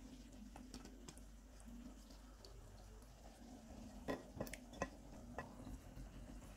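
A few sharp clicks and knocks of a serving spoon against a pot while chicken korma is spread over a layer of boiled rice, the loudest cluster about four to five and a half seconds in, over a faint steady hum.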